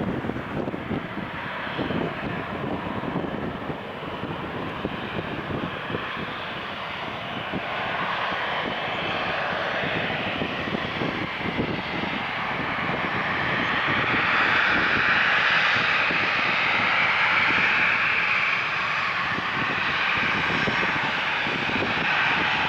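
Jet engines of a Boeing 737-800 running and growing steadily louder, a broad roar with a strengthening hiss that peaks over the second half. Gusty wind rumbles on the microphone underneath, strongest in the first half.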